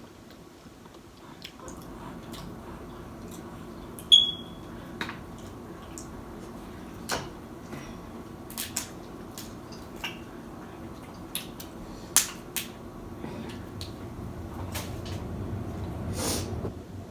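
Close-miked eating of snow crab: scattered short clicks and wet smacks of crab shell being cracked and picked and of chewing. One short ringing clink about four seconds in.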